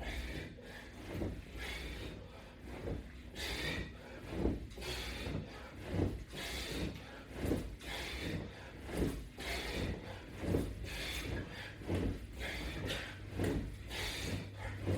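A person breathing hard in time with repeated sit-up crunches, a forceful exhale about every second and a half.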